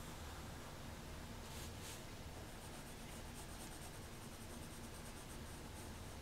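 Pencil shading on paper: faint, quick back-and-forth strokes of graphite scratching across the sheet as an area is filled in.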